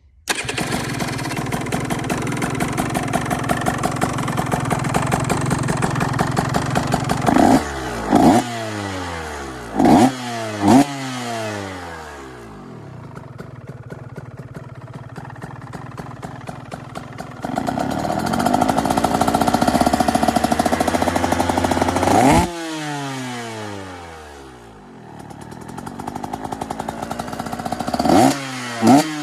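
A 2023 KTM 125 two-stroke single-cylinder dirt bike engine, breathing through a new Pro Circuit exhaust pipe, starts a fraction of a second in and runs. It is blipped several times with quick revs that drop back to idle each time, and is held at a higher speed for a few seconds in the middle.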